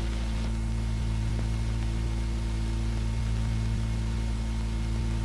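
Steady low electrical hum made of several constant tones, over an even background hiss. This is the noise floor of an old film soundtrack between narration lines.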